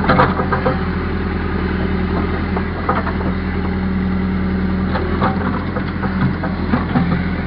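Backhoe's diesel engine running steadily at a low, even speed, with a few short clanks, around 3 and 5 seconds in.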